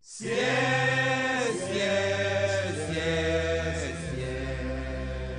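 Music: chanted singing in phrases over sustained bass notes, starting abruptly.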